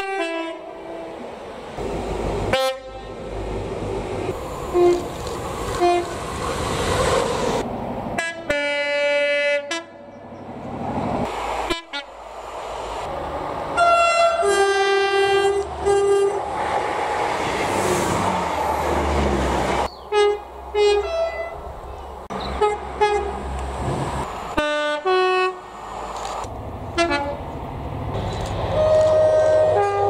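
Several British diesel passenger trains sounding two-tone horns, short blasts each pairing a higher note with a lower one, repeated many times across different trains. The rumble of the approaching trains fills the gaps between the blasts.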